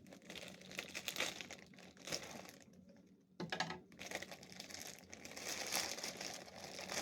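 A shipping package being cut and torn open, its wrapping crinkling on and off, with a sudden louder rip about halfway through.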